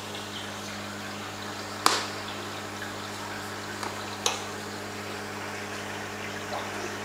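Aquarium pump or filter running with a steady hum and the sound of moving water, with two sharp knocks about two and a half seconds apart.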